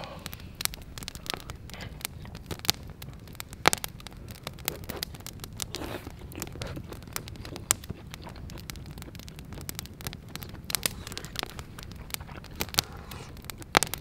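Wood campfire crackling, with irregular sharp pops, a few of them louder than the rest.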